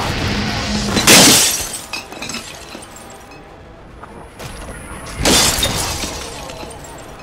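Two loud crashes, about four seconds apart, each a sudden burst of noise that fades over about half a second; the first is the louder.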